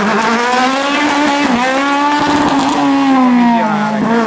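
Rally car engine revving hard: the pitch climbs at the start and is held high, then drops off about three and a half seconds in, with a shift just after.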